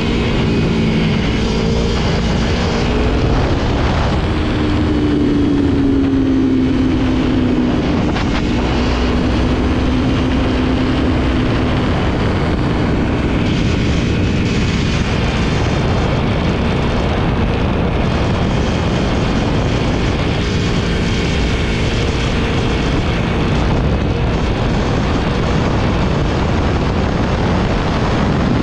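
Aprilia motorcycle engine running under way, with heavy wind and road noise on the microphone. The engine note rises about four seconds in and holds. From about twelve seconds in, the wind rush covers most of it.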